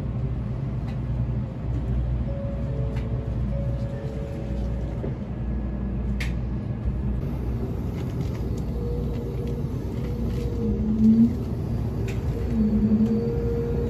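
Steady low rumble of a Shinkansen bullet train running, heard inside the passenger car, with a few faint held musical notes over it in the second half.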